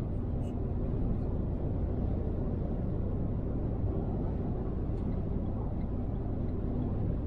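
Steady low road rumble of a car driving at motorway speed, tyre and engine noise blended together.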